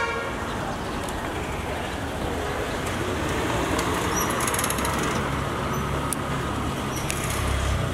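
Steady street traffic noise, with a vehicle engine's low hum growing louder in the second half.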